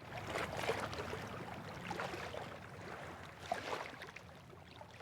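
Water sounds: gently moving water with small, irregular splashes and trickles, easing slightly toward the end.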